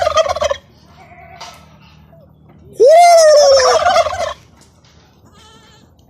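Domestic turkey toms gobbling together: the end of one loud gobble right at the start, then a second loud, rattling gobble about three seconds in that lasts about a second and a half.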